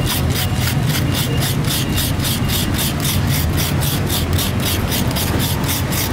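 Fresh coconut meat being shredded in its half shell with a hand-held scraper: rapid, even rasping strokes, about five a second, over a steady low hum.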